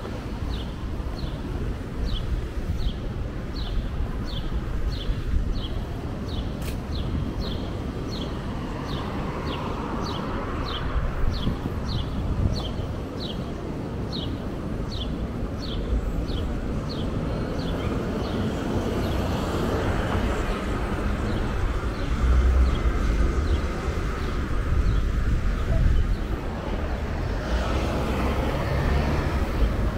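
City street ambience: a steady rumble of road traffic that swells heavier from about two-thirds of the way in, with a regular high clicking about twice a second through the first half.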